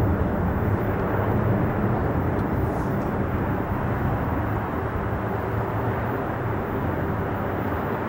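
Boeing 777's twin GE90 turbofan engines at climb thrust: a steady, low, rumbling roar heard from behind as the airliner climbs away, slowly fading.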